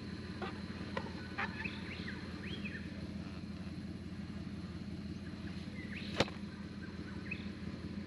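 A few short bird chirps over a steady low hum, with scattered light clicks and one sharp knock about six seconds in.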